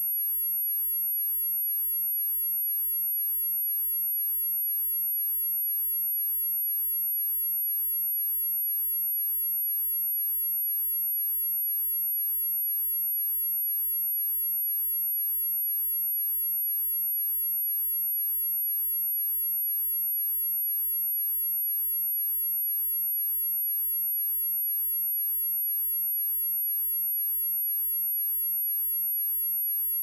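A pure sine-wave test tone at 11,398 Hz, a single steady high-pitched whine held at constant loudness.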